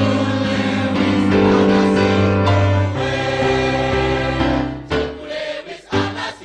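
A choir singing long held chords. The chord changes about three seconds in, the singing thins out, and short, clipped chords start near the end.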